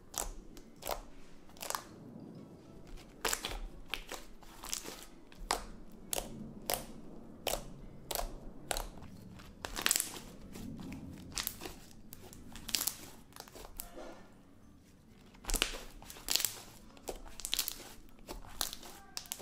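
Sticky homemade slime squeezed, pressed and pulled apart by hand, giving irregular wet pops and clicks. The slime is not yet fully activated and still a little sticky.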